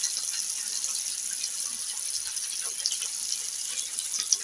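Boneless chicken thighs sizzling on an electric grill, basted with chicken oil: a steady high hiss with small crackles and pops.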